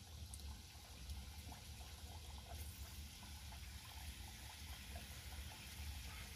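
Shaped dough pastries frying gently in a pot of oil over low heat: faint bubbling with many small scattered crackles over a steady low hum.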